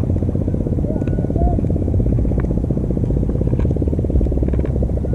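A small engine running steadily, a low, even rumble.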